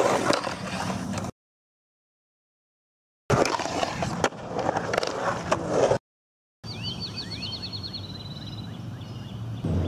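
Skateboard wheels rolling on a concrete bowl, with the trucks scraping and clacking on the coping, in two short bursts separated by hard cuts to silence. After the second cut comes a quieter outdoor scene with a bird chirping in quick high trills.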